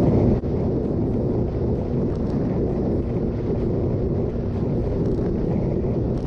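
Wind rushing over the microphone of a motorcycle travelling at about 80–87 km/h, with a steady drone of engine and road noise underneath.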